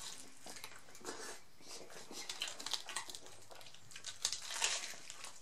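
Close-up chewing of a crisp fried-tortilla taco: faint, uneven crunching and crackling with wet mouth sounds, with a few louder crunches near the end.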